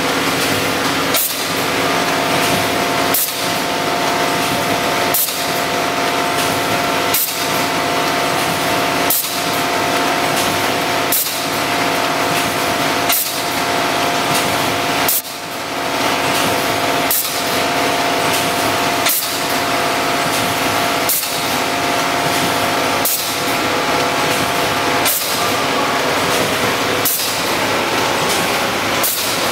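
HMK1600 edge-spout doy pack machine running steadily: a constant mechanical hum with steady tones underneath, and a short, sharp hiss of compressed air about every two seconds as its pneumatic cylinders cycle.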